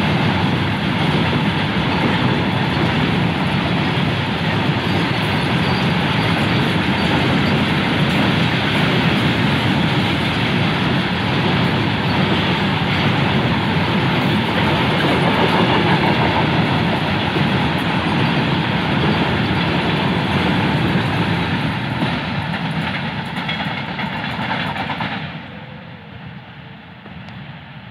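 Freight train of covered goods wagons rolling past close by: a steady, loud rumble with steel wheels clattering on the rails. The noise falls away sharply near the end.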